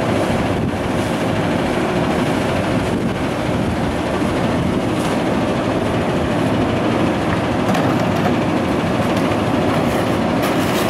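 Front-loader garbage truck's diesel engine running steadily close by, with a few faint knocks near the end as trash cans are emptied into the bin.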